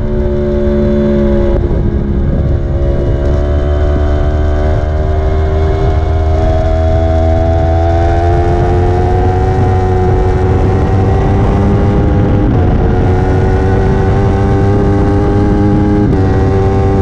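Sport motorcycle engine pulling hard at high revs, heard onboard with wind rush. Its pitch climbs slowly as the bike accelerates out of a corner and onto a straight, dropping in a step at the start and again near the end where it shifts up a gear.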